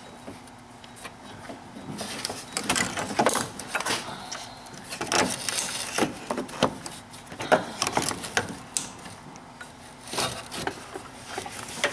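Serpentine belt being fed by hand around the A/C compressor pulley: irregular scrapes, rubs and light clicks as the rubber belt and fingers knock against pulleys and surrounding plastic.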